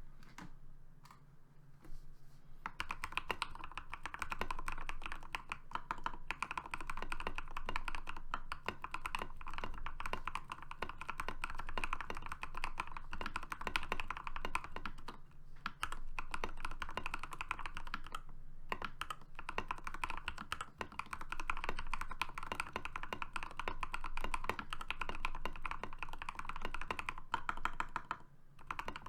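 Fast, continuous typing on a modded Next Time NT75 mechanical keyboard with hand-lubed Gateron Pro Yellow linear switches, PBT Cherry-profile keycaps and PE foam switch pads: a dense patter of keystrokes. It picks up after a couple of seconds of sparse keypresses and breaks off briefly twice, about two-thirds through and near the end.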